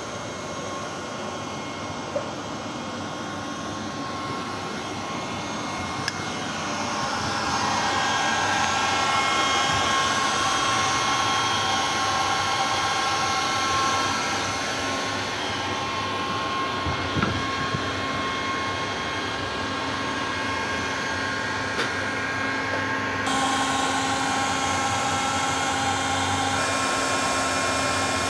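Steady machine whir with several held whining tones, growing louder about seven seconds in.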